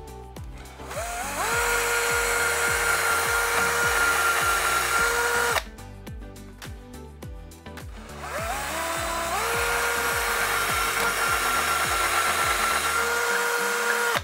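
Bosch cordless drill boring two holes into a wall. Each time the motor's whine rises in steps as it spins up, holds steady for several seconds, then stops. Background music plays throughout.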